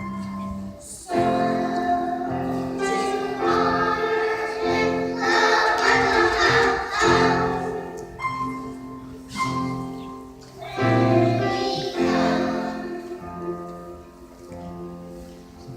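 Choir singing a Christmas song, sustained notes changing every second or so, growing quieter over the last few seconds.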